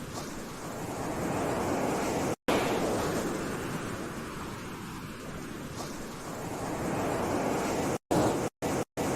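Sea waves surging in and washing back, a rushing noise that swells and fades twice. The sound drops out for an instant a couple of seconds in, then cuts in and out rapidly near the end.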